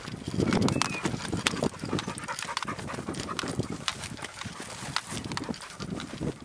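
Footsteps through dry scrub: crackling twigs and rustling brush with dull thumps, loudest in the first second.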